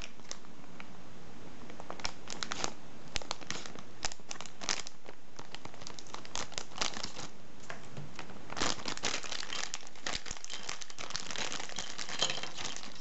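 Thin plastic polybag crinkling in the hands as it is cut open with scissors, in irregular short crackles coming in clusters.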